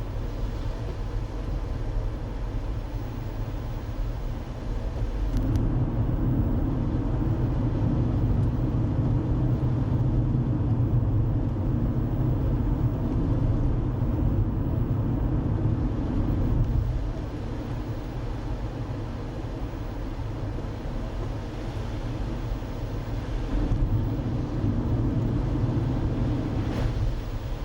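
Car driving, heard from inside: a steady low rumble of engine and tyres on the road. It grows louder about five seconds in, eases off after about ten seconds, and swells again near the end.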